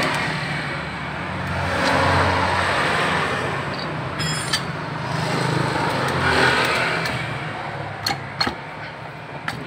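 A motor vehicle engine running nearby, getting louder twice, about two and six and a half seconds in. Near the end come a few sharp metallic clicks from the scooter's cylinder block being worked off its piston.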